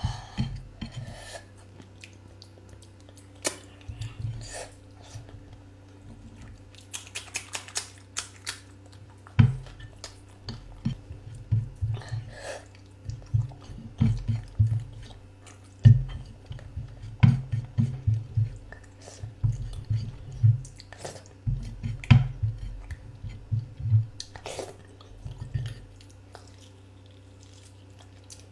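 A person chewing food close to the microphone, in irregular runs of bites and wet mouth smacks with short pauses between, over a faint steady hum.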